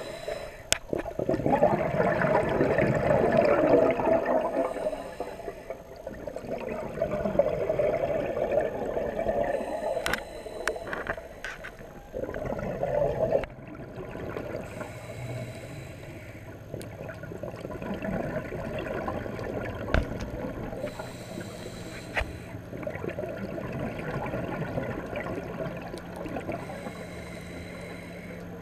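Scuba diver breathing underwater through a regulator: a short hiss on each inhale about every five or six seconds, and bubbling exhaust on the exhales. A faint low steady hum joins in the second half.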